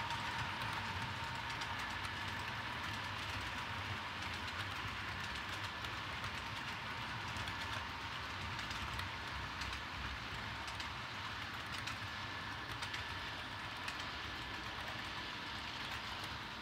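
Model double-stack container cars rolling steadily past on the track: an even rolling hiss with scattered faint clicks and a faint whine underneath.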